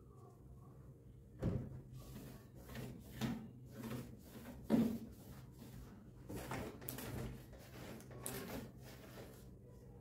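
A cloth wiping and rubbing the stainless-steel inside of an open dishwasher door, with a few knocks and bumps of handling. The loudest knock comes about five seconds in.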